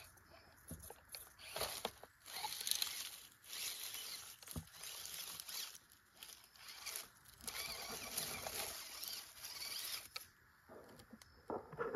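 Dry fallen leaves crackling and rustling in uneven stretches under the tyres of a small RC crawler truck, with a short pause about ten and a half seconds in.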